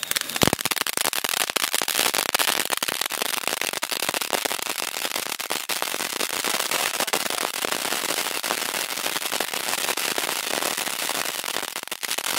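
Ajanta Kinder Joy ground-fountain firecracker spraying sparks with a dense, continuous crackle. Two sharp cracks come right at the start.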